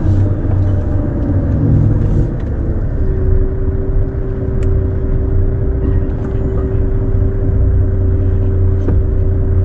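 Lorry engine running steadily on the move: a low drone, joined about three seconds in by a steady whine.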